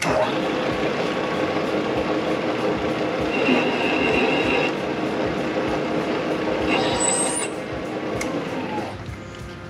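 Vertical milling machine spindle cutting a chamfer into the top of a drilled head-stud hole in an engine block, a steady machining noise that starts abruptly. A brief high whine comes from the cut about three and a half seconds in, and the noise drops away shortly before the end.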